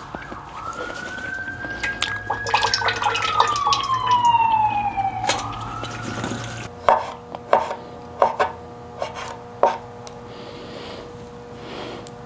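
A whine rises, holds and then slowly falls in pitch, over clatter and splashing at a kitchen sink where olives are being rinsed in a stainless-steel colander. It stops abruptly about seven seconds in. Then a knife slices black olives on a wooden cutting board, in a series of sharp, uneven taps.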